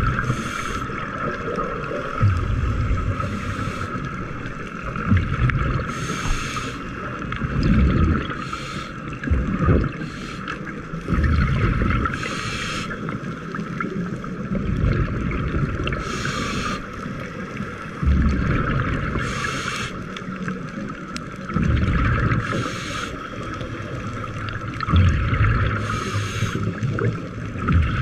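Scuba regulator breathing heard underwater: a bubbling, hissing exhalation about every three to four seconds, over a steady low rumble of water moving past the camera housing.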